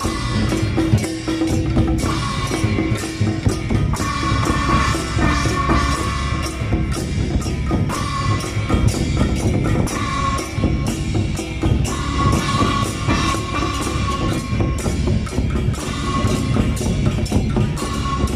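Temple procession drum troupe playing: a big drum and smaller drums beaten in a dense, fast beat with cymbals clashing, and a high held note that comes and goes over it.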